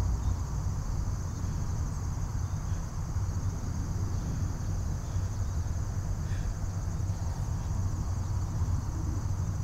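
Insect trilling, high and continuous, like crickets, over a steady low drone.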